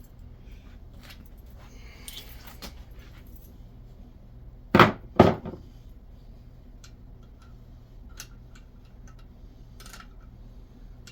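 Hand tools and small metal parts clinking on an engine cylinder head, with two sharp metallic knocks in quick succession about halfway through.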